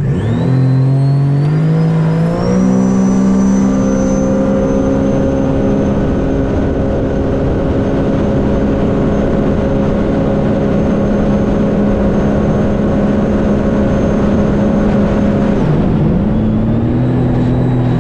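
A 2021 Sea-Doo RXT-X's supercharged Rotax engine goes to full throttle. Its pitch climbs over the first couple of seconds and is then held high and steady at top RPM, with a high whine running above it. A few seconds before the end the throttle comes off and the engine drops back to a lower, steady pitch.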